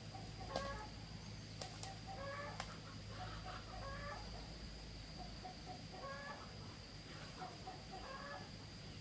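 Chickens clucking: short, repeated calls every second or so. Under them run a steady low hum and a thin high-pitched whine, with a few sharp clicks in the first three seconds.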